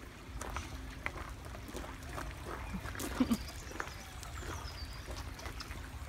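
Woodland walk ambience: a shallow, rocky stream trickling, footsteps crunching on a gravel path, and a few faint bird chirps near the middle.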